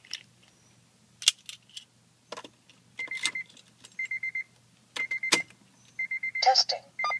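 Keys clicking and jangling, then a 2008 Acura TL's warning chime beeping in quick groups of four about once a second, with a louder rattling burst about six and a half seconds in, in a car that won't start on its failing battery.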